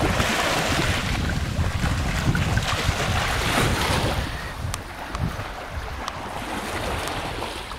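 Small Baltic Sea waves lapping and washing at the shoreline over sand and stones, swelling and easing, with wind rumbling on the microphone.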